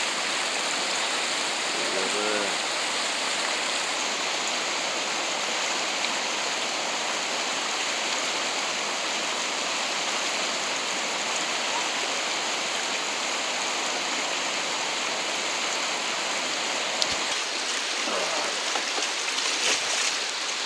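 Steady rush of river water pouring over a low weir and running through the rapids below it, with a brief shout about two seconds in and another voice near the end.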